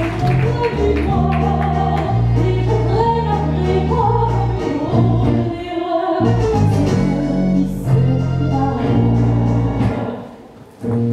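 Live circus band music with held bass notes under a melody; the music drops away briefly near the end, then starts again.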